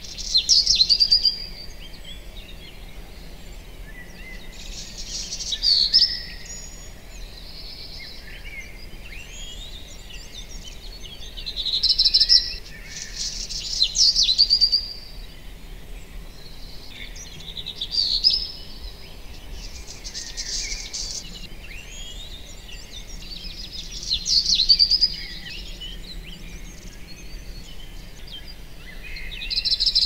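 Several birds singing in a spring forest. A loud, quick song phrase recurs every few seconds, with fainter chirps and calls in between, over a faint steady background noise.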